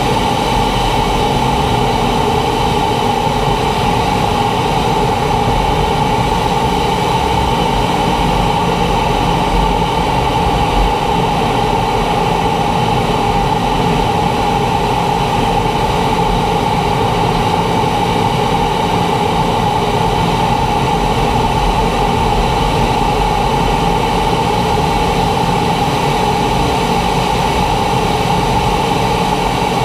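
T-45 Goshawk jet trainer in low-level flight: its single Rolls-Royce Adour turbofan and the airflow make a steady, even rush of noise carrying a constant mid-pitched hum.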